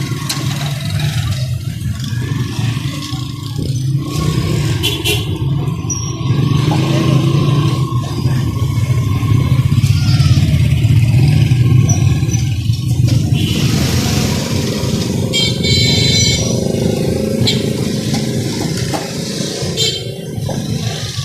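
A steady motor drone, swelling loudest about ten to thirteen seconds in, with a few light clicks and clatters over it.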